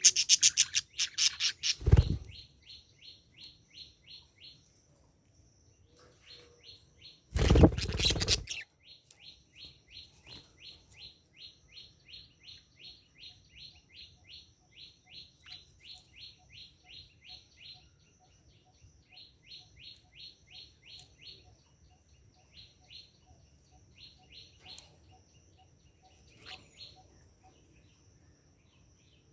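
Budgerigar chirping in a fast, regular run of short chirps, about four a second, which pauses and thins out near the end. Two loud bursts break in at the start and about eight seconds in.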